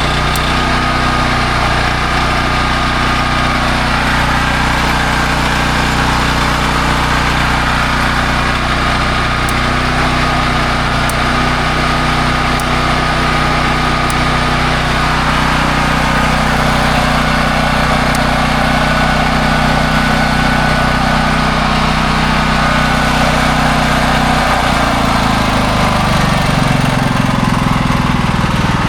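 Honda EB5000X generator's single-cylinder engine running steadily, its new governor arm holding the speed. Near the end its note briefly sags and wavers, then settles again as the governor corrects.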